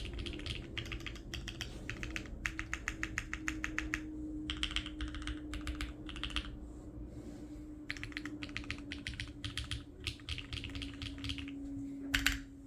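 Typing on a Neo65 mechanical keyboard with hand-lubed Gateron Smoothies linear switches, a POM plate and ePBT keycaps: quick runs of keystrokes in bursts with short pauses between them, and one louder single clack near the end.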